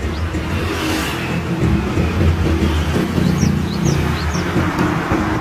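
Road traffic: motor vehicles going by, a steady engine and road rumble that gets louder about two seconds in, with a few short high chirps near the middle.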